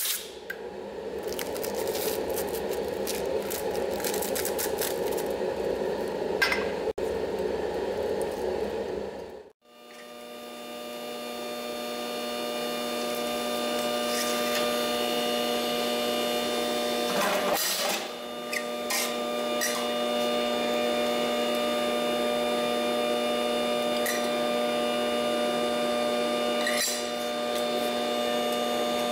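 A steady rushing noise with a few clicks for about nine seconds, then a powered guillotine sheet-metal shear's motor running with a steady hum of several fixed tones. There is one brief louder noisy stroke a little past halfway.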